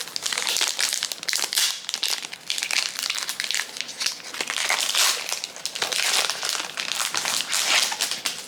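Foil wrapper of a Pokémon trading card booster pack crinkling continuously as it is handled and opened, stopping abruptly near the end.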